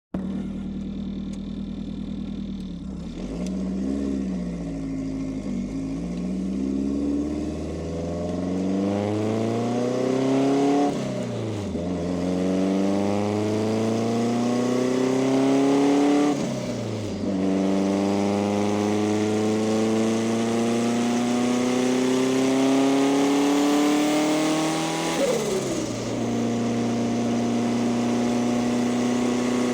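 Turbocharged car engine accelerating hard through the gears: its note climbs steadily in each gear and drops sharply at three shifts, about 11, 17 and 25 seconds in, where the turbo flutters as the throttle closes. It settles to a steady cruise near the end.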